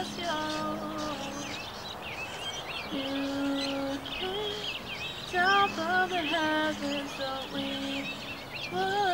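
A woman singing slow held lines over acoustic guitar, with gaps between phrases. Birds chirp throughout in the background.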